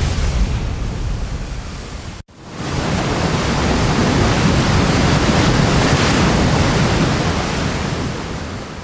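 AI-generated sound effect of a giant rock crashing into the ocean with waves splashing: a deep wash of crashing water. One take fades and cuts off about two seconds in, then a second take swells up and slowly dies away.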